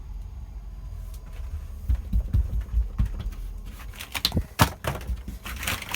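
Damp, delaminating plywood caravan wall panel being pulled at by hand: dull low knocks, then a few sharp cracks about four seconds in.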